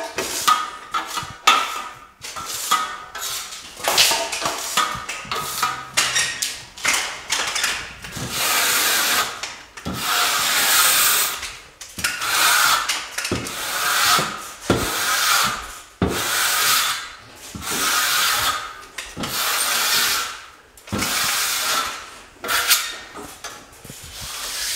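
Steel drywall trowel scraping wet joint compound across a plasterboard ceiling in repeated strokes of about a second each, skimming a butt joint flat.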